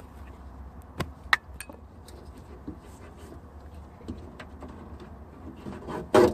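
Sharp metallic clicks and knocks of hand tools and latch hardware being worked in a car's trunk, a few single strikes with a louder clatter near the end, over a steady low hum.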